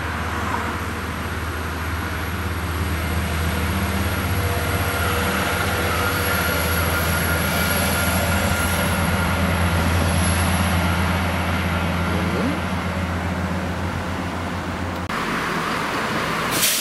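Diesel multiple-unit passenger train passing, its underfloor engines giving a steady low drone. The sound changes abruptly about a second before the end.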